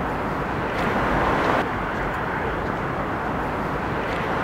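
Steady city street ambience with a distant traffic hum. About a second in the traffic noise swells louder for a moment, then drops back abruptly.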